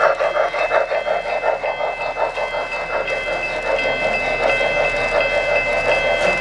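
O-gauge model passenger train rolling past on three-rail track: a steady running sound with regular clicking, about three clicks a second, and a pulsing that eases off about halfway through.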